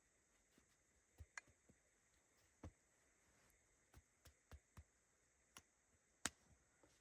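Scattered, irregular small clicks and knocks at about a dozen uneven moments, the sharpest about six seconds in, over a faint steady hiss.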